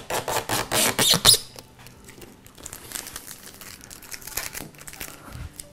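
Protective plastic film being peeled off the glossy front panel of a NAS enclosure: a fast, loud crackling for about the first second and a half, then sparser, fainter crinkles as the film comes away.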